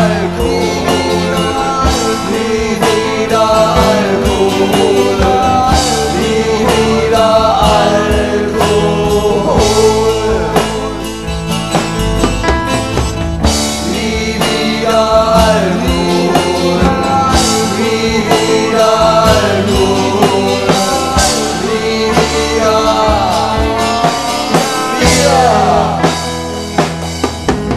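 Rock band playing a passage between sung verses: drum kit and bass under a lead melody line that bends up and down in pitch.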